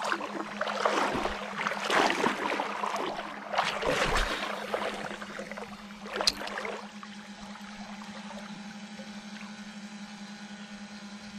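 Steady low electric hum from a Minn Kota Edge bow-mount trolling motor, with several bursts of rushing noise in the first few seconds and one sharp click about six seconds in.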